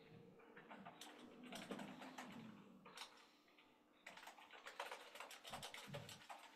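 Faint typing on a computer keyboard: two runs of quick key clicks with a short pause between them about three seconds in.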